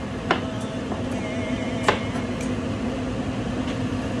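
A kitchen knife cuts through a tomato and strikes a plastic cutting board: two sharp knocks about a second and a half apart, with a few lighter taps, over a steady hum.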